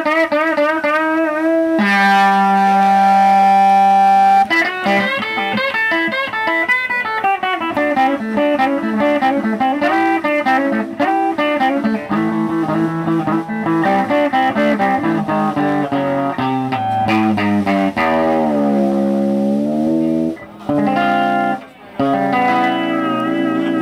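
Live instrumental rock-and-roll band: electric guitar lead over drums. The guitar plays wavering held notes, then fast picked runs, and swoops down in pitch and back up about 18 seconds in. Two brief breaks follow, then a held ringing chord near the end.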